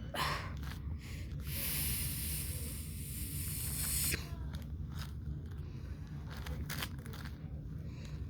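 Layers of a magnetic MoYu 5x5 speed cube being turned by hand: quick, irregular clicks and scrapes, with a steady hiss from about one and a half to four seconds in.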